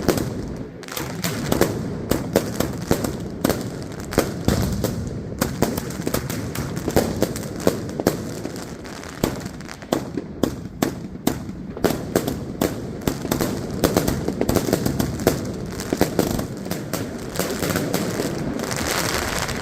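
Evolution Fireworks 'Snowstorm' firework going off: a dense, continuous stream of sharp cracks and bangs, several a second, with a thicker run of crackling near the end.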